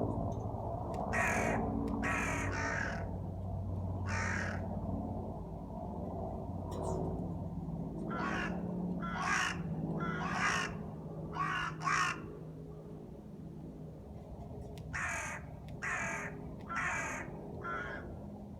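A crow cawing in three bouts of separate calls, about four, then five, then four caws, with pauses of a few seconds between bouts. A steady low hum runs underneath.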